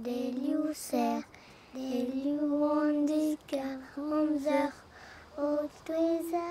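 A child singing alone, without accompaniment, in short phrases of held notes with brief pauses between them.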